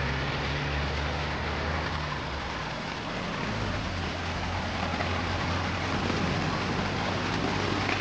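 Road traffic by the roadside: a vehicle engine's low hum, its pitch dropping about two seconds in, over a steady hiss.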